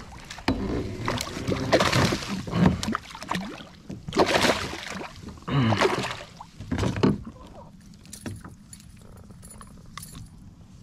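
A bass splashing and thrashing in a landing net at the kayak's side, in several loud bursts over the first seven seconds. Then come lighter metallic clicks and jingles as a spinnerbait's hooks are worked free.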